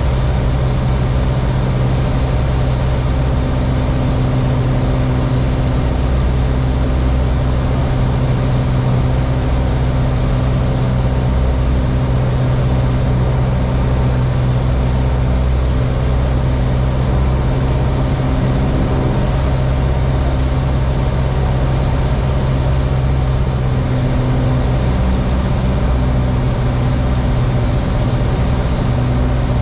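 Piper Warrior cabin noise in flight: the four-cylinder Lycoming engine and propeller running with a steady low drone over a constant rush of noise, heard from inside the cockpit.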